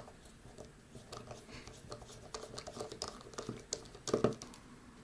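Faint, irregular clicks and ticks of a small precision Phillips screwdriver turning a tiny screw out of the plastic back of a fitness tracker wristband, with fingers handling the case. A louder knock comes a little after four seconds.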